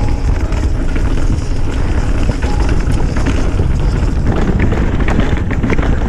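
Wind buffeting the microphone during a mountain bike ride, over a steady rumble of tyres on the trail, with frequent sharp clicks and rattles from the bike.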